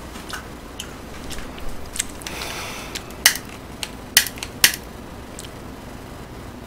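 Scattered small sharp clicks and taps, a few louder ones about three to five seconds in, with a short rustle about two and a half seconds in, over a steady low hum.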